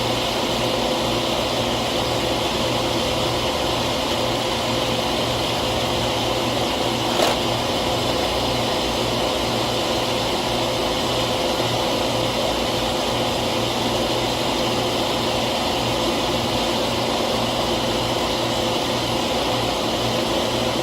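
Steady mechanical hum of a running machine, even in level throughout, with a single sharp click about seven seconds in.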